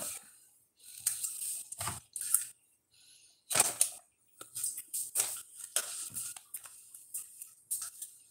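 Grocery packages rustling and knocking as they are gathered up by hand, in a string of short, irregular bursts.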